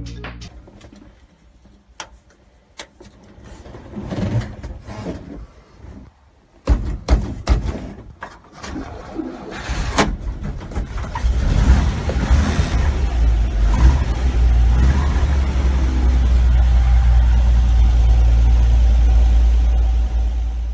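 Starter cranking the 1949 Dodge B1C-116 pickup's 218 cubic-inch flathead straight-six in uneven bursts. The engine catches about eleven seconds in and settles into a steady, low-rumbling idle.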